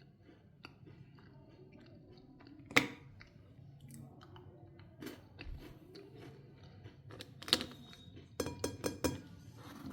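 Chocolate wrappers being unwrapped close up: irregular crinkling and crackling, with a sharp snap about three seconds in, another about seven and a half seconds in, and a quick run of snaps near the end.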